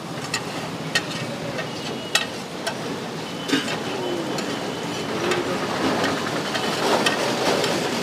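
Metal spatula scraping and clinking on a large flat iron tawa as mutton pieces, liver and litti are stirred and tossed in hot oil, with frying sizzle underneath. The scrapes come as many short irregular clicks over a steady hiss.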